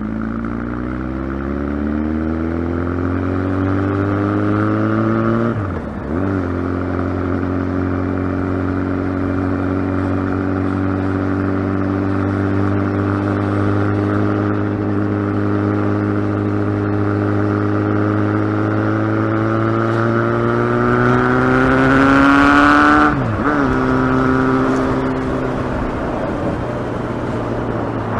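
Kawasaki ZX-12R's inline-four engine accelerating under load, its note climbing steadily and dropping sharply twice, about six seconds in and again about five seconds before the end, at upshifts.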